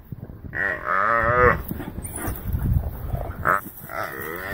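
Gemsbok bellowing in distress while being attacked by African wild dogs: three drawn-out, wavering bellows, the longest about a second in.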